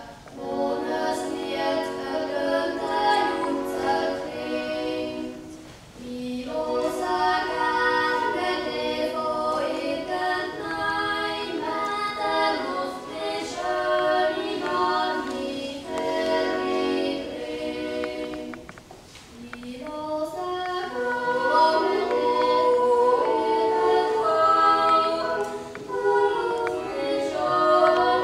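Swiss yodel choir singing a cappella in several-part harmony, holding long chords in phrases with short breaks about six and nineteen seconds in.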